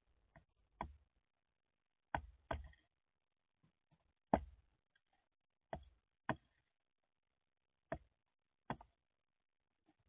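Northern flicker pecking at a tray feeder: about nine sharp knocks of its bill on the tray, spaced irregularly, some in quick pairs.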